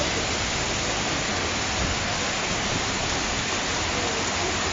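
Heavy thunderstorm rain falling steadily, an even hiss with no thunderclap.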